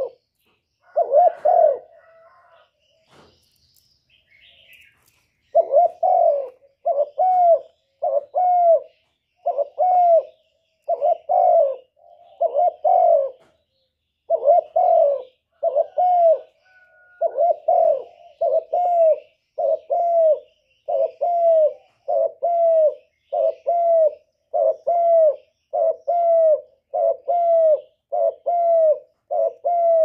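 Male spotted dove cooing to court a hen: short, low coos repeated about once a second, with one coo near the start, a pause, and then a steady unbroken run from about five seconds in.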